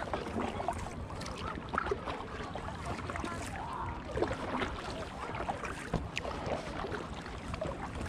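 Paddle working the water beside an Intex Explorer K2 inflatable kayak: irregular small splashes and drips over a steady water wash.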